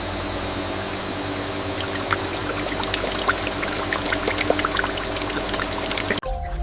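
Liquid pouring and splashing steadily over a constant machine hum, with scattered small clicks and drips. It cuts off suddenly near the end.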